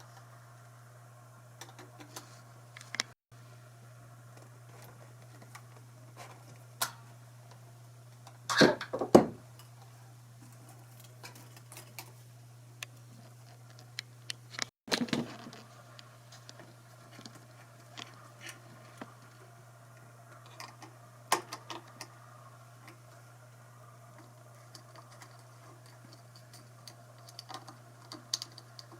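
Irregular small clicks and light knocks of tools and hardware handled while disassembling an Ibanez RG electric guitar, with two louder clusters of knocks about a third and halfway through, over a faint steady low hum.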